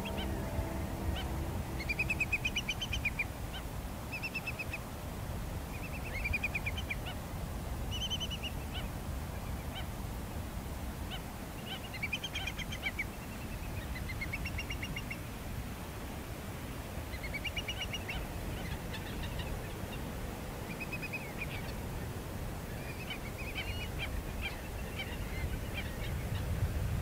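Birds calling again and again in short bursts of rapid chattering notes, several calls overlapping at times, over a steady low rumble.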